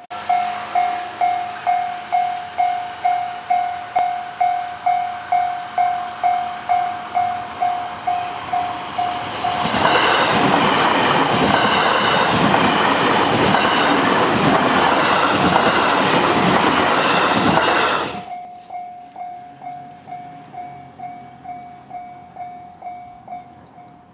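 Japanese level-crossing warning bell ringing steadily, about two strikes a second. About ten seconds in, a Hanwa Line electric train passes for about eight seconds; its rumble and the regular clatter of wheels over rail joints drown the bell. Once the train has gone the bell rings on, quieter.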